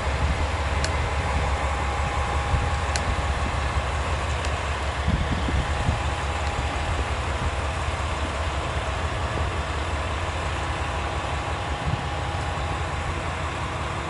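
Steady low rumble of a wheelchair being rolled backward over platform paving, with a KiHa 40 diesel railcar's engine idling in the background.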